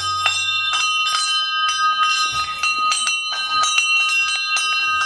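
A bell ringing steadily, struck again and again about three or four times a second, its high clear tones held between strikes.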